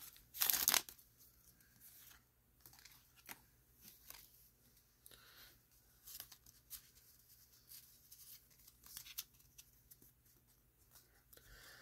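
Foil booster-pack wrapper crinkling and tearing in one loud burst about half a second in, followed by faint scattered rustles and light clicks of trading cards being handled and slid apart.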